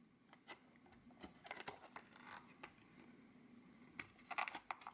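Near silence, with a few faint clicks and rustles of a small plastic toy figure being handled, in a cluster about a second and a half in and another about four seconds in.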